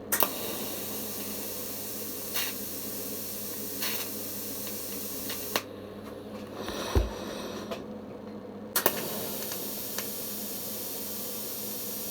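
Electric welding arc with a steady hiss on a brass tube fed with filler rod. The arc breaks off about five and a half seconds in and strikes again a few seconds later, over a steady low hum. There is a dull thump while the arc is off.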